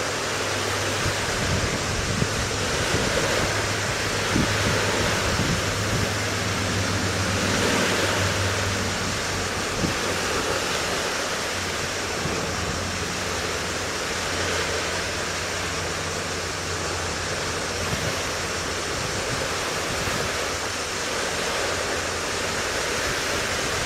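Wind blowing across the microphone as a steady rushing hiss, with a faint low hum underneath.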